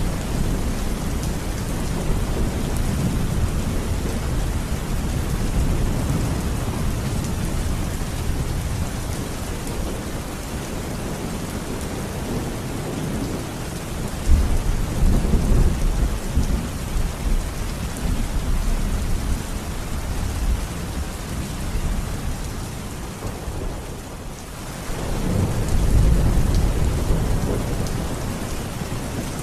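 Thunderstorm: steady heavy rain with rolling thunder rumbling underneath, a loud sudden crack of thunder about halfway through and another swelling roll of thunder near the end.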